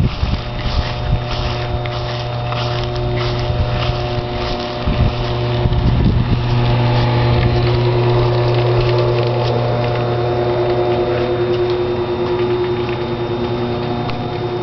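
A motor-driven machine humming steadily, with a strong low drone and several steady tones above it, growing louder about six seconds in.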